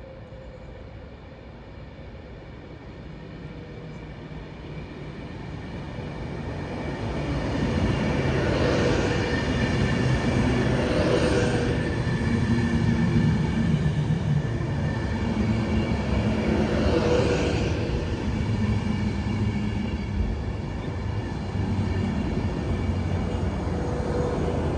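Avanti West Coast Class 390 Pendolino electric train approaching and running along the platform. Its rumble builds over the first several seconds to a loud, steady sound about eight seconds in, with a few rushes as the carriages go by.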